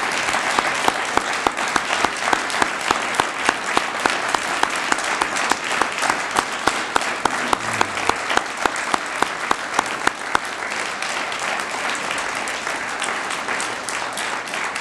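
Audience applauding, with one person's close, regular claps at about four a second standing out over the crowd for the first ten seconds or so.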